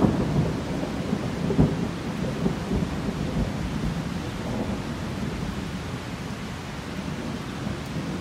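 Thunder rumbling through steady rain, with a sharp loud jolt about one and a half seconds in, then a long rolling rumble that slowly eases off.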